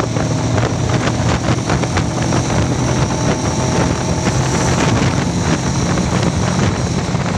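Motorcycle engine running hard at highway speed, about 110 km/h and climbing, with wind buffeting the microphone.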